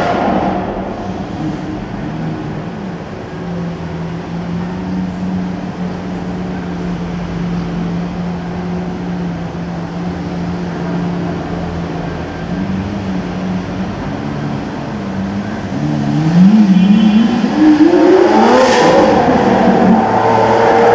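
Lamborghini Aventador's V12 idling with a steady low hum and a few light revs, then pulling away late on, the engine note rising in steps and growing loud as the car passes close.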